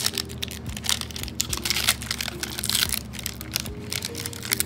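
Foil card-pack wrapper crinkling and tearing as it is pulled apart by hand: a dense, irregular run of sharp crackles.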